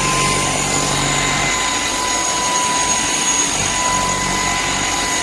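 Vacuum cleaner motor running steadily: a high, constant whine over rushing air.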